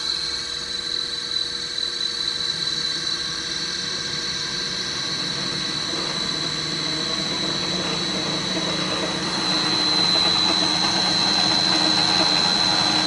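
Drill press's new electric motor, run from a variable-frequency drive, running steadily with a high steady whine over a lower hum, growing a little louder about two-thirds of the way through.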